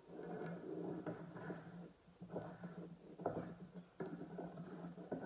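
Wooden spoon scraping and scooping sticky cookie dough in a stainless steel mixing bowl, with a few soft knocks of the spoon against the bowl.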